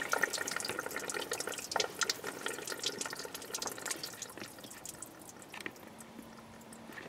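Engine coolant splashing and dripping out of the Maestro's opened thermostat housing, which was taken off without draining the cooling system first. The flow thins to occasional drips after about four seconds.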